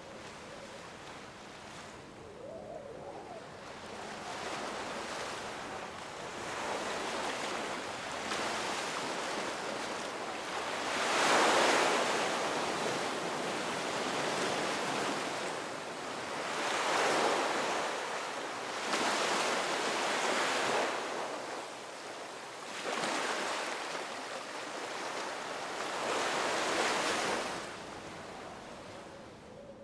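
Ocean surf: waves breaking and washing up the beach, the rush swelling and fading every few seconds, loudest about a third of the way in.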